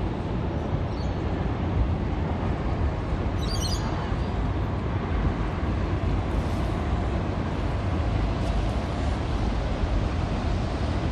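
Steady outdoor rumble of traffic and wind on the microphone, with no distinct events. A brief high chirp comes about three and a half seconds in.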